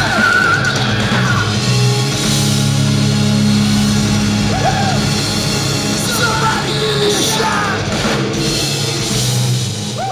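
Live hard rock band playing loud: distorted electric guitars, bass and drums, with a yelled lead vocal near the start.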